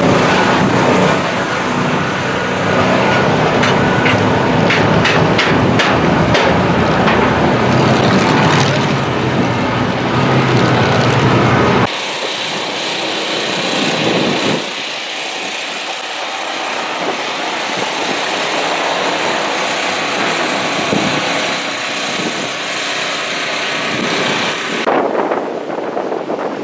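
Demolition derby car engines running loud, with a run of sharp knocks in the first half. The sound changes abruptly about twelve seconds in to a thinner, lighter engine noise.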